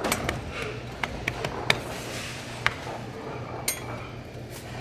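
Light metallic clicks and a ringing clink from a steel ring mold and utensils handled on a stainless-steel flat-top griddle, over a steady low hum.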